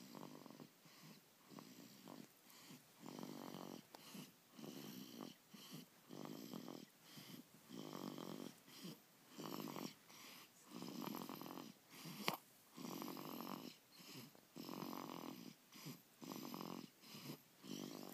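A sleeping baby snoring in quick, regular breaths, roughly one snore a second, with a purr-like, almost cat-like sound. A single sharp click about twelve seconds in.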